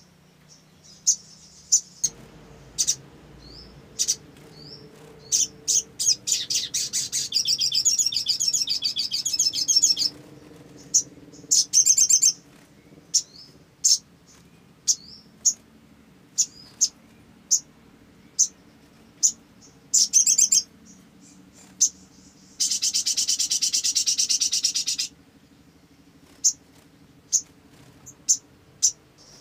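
Olive-backed sunbird singing: sharp, high chirps repeated every second or so, broken twice by long buzzing trills, one of about four seconds a fifth of the way in and one of about two and a half seconds past the three-quarter mark.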